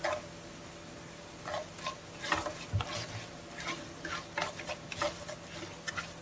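Mustard seeds and urad dal frying in hot ghee in a kadai for a tadka, sizzling with irregular crackles and scraping clicks, partly from a spatula stirring them.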